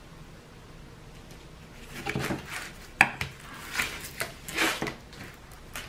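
Hands smoothing and pressing a diamond painting canvas under its plastic film, making a run of short rustles and crinkles. There is a sharp tap about three seconds in.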